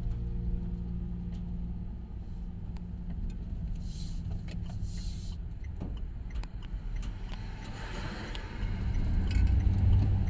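Van driving, heard from inside the cab: a steady low engine rumble and road noise with small rattles and clicks, growing louder near the end.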